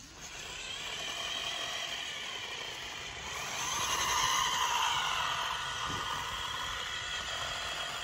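Small motor and gears of a model Massey Ferguson 385 tractor running under strain as its drive wheels dig into loose sand. The whine swells louder about three and a half seconds in, then eases.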